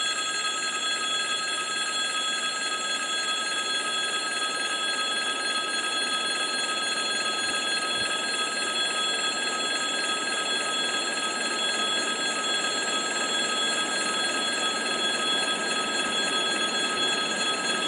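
Railway crossing's electric warning bell ringing without a break, its clanging steady throughout, over the even rumble of a train.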